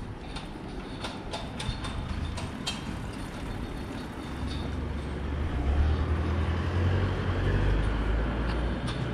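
Low rumble of a train passing, building from about four seconds in and loudest near the end, over city street noise, with a few sharp clicks in the first three seconds.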